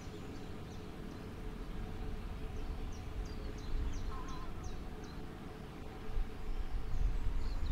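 Wind rumbling on the microphone outdoors, with a small bird's short, high, falling chirps repeated two or three times a second for the first five seconds and once more near the end.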